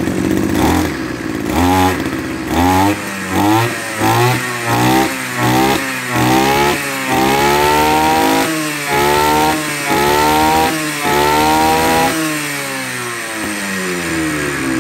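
Maruyama MKF330 33cc brush cutter engine being revved again and again: a string of short throttle blips that rise and fall, then longer held revs, before the engine winds back down to idle near the end.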